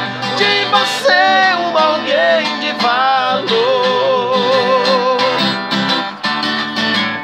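Two men singing a Portuguese-language gospel song together over a strummed acoustic guitar. The voices end on a long wavering held note about five seconds in, and the guitar strums on alone after them.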